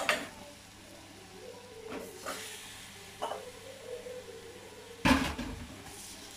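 Mutton pieces going into a pressure cooker of masala, with a few light clinks of a steel ladle against the pot and one heavy thump about five seconds in.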